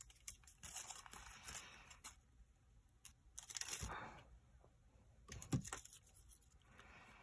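Faint rustling and peeling of a glue dot roll's paper backing as a glue dot is picked off it with a pen-like tool, with a short click about five and a half seconds in.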